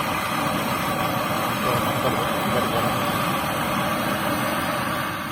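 A motor-driven machine running steadily, with a faint steady whine in its noise.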